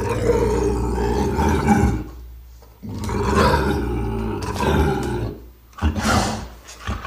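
Velociraptor creature sound effect: two long, loud roaring calls of about two to three seconds each, then two short calls near the end.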